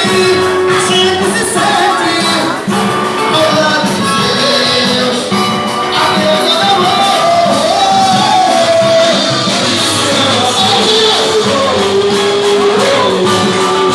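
Live band music with a lead singer's voice carrying the melody.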